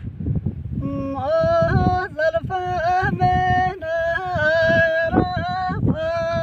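Gojri folk bait sung by a single high voice: long held notes with wavering bends and ornaments, starting about a second in. Wind buffets the microphone underneath.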